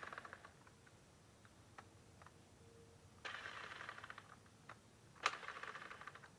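Two faint bursts of rapid mechanical clicking, each about a second and a half long, the second starting with a sharp click.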